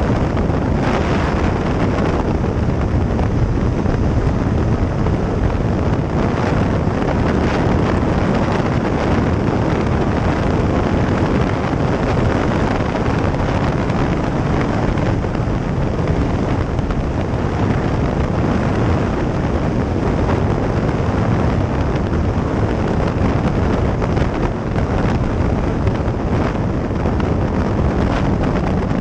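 Steady wind rush on the microphone of a sport motorcycle at cruising speed, with the bike's engine running underneath.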